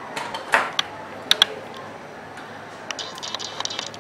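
Clicks and scratching of a mobile phone's plastic housing being handled and pried at with a plastic opening tool: a few sharp clicks in the first second and a half, then a run of small quick ticks near the end.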